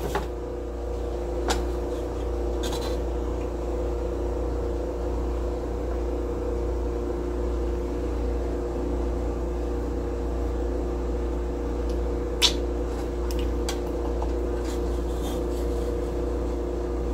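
Steady hum of a kitchen appliance or fan, with a low rumble under it. Over it come a few light clicks of a metal slotted spoon against the pot as rice is scooped out, and one sharper clink about twelve seconds in.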